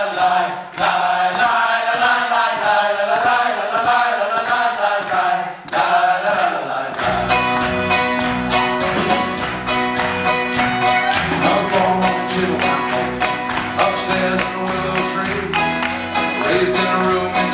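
Live folk-bluegrass band with banjo, fiddle, accordion and acoustic guitar playing a song intro. A lighter, wavering melodic opening with no bass gives way about seven seconds in to the full band, with bass and drums keeping a steady beat.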